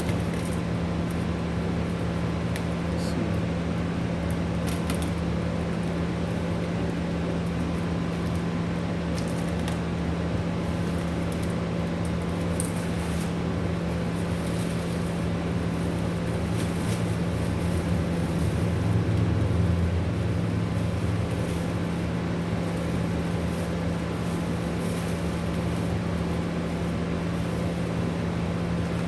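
Steady mechanical hum with a constant low drone, like a fan running, and a few faint light ticks.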